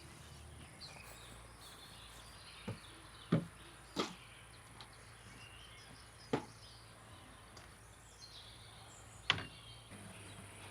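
Steady high insect chirring with faint bird chirps, broken by about five short, sharp knocks at irregular intervals.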